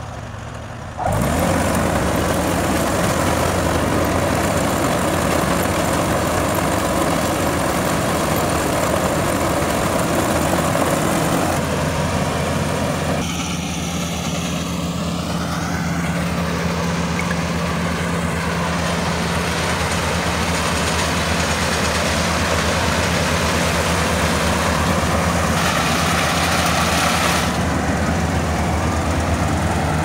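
Kubota AR70 combine harvester running steadily, its engine hum jumping much louder about a second in and holding a steady low drone thereafter.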